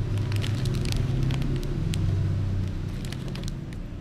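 Crinkling of a foil snack packet being handled, many short crackles, over a steady low rumble like a motor running nearby that eases off near the end.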